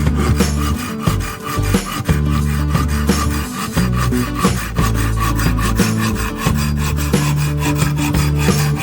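Rasping, back-and-forth rubbing strokes, several a second, of a drill bit being sharpened by hand, over background music with held bass notes.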